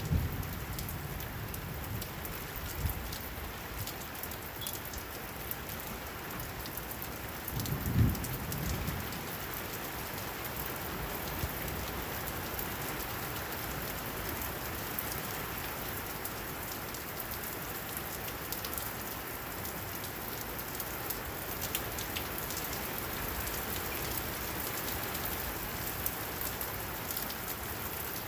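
Steady rain falling on wet pavement and roofs, with close drops ticking. There is a brief low thump about eight seconds in.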